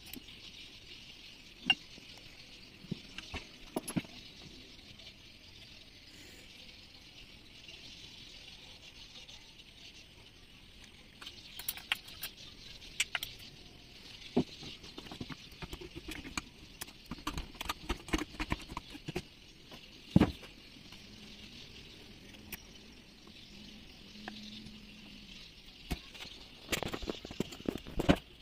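Scattered light metal clinks and knocks of engine parts being handled and set down while a Yamaha 40 hp two-cylinder outboard powerhead is assembled, with a cluster of knocks near the end as the crankshaft is seated in the crankcase. A steady high hiss runs underneath.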